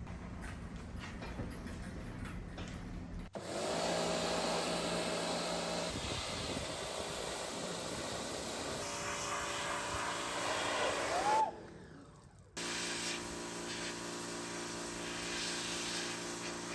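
Pressure washer running steadily, its motor humming under the hiss of the spray as the engine is washed; the sound steps up about three seconds in and breaks off for about a second before it resumes.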